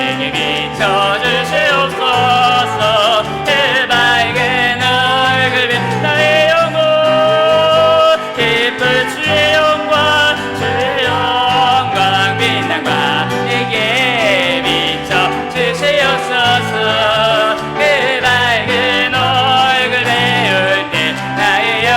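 Church praise band playing an instrumental passage with no words: piano and bass under a sustained melody line that wavers with vibrato.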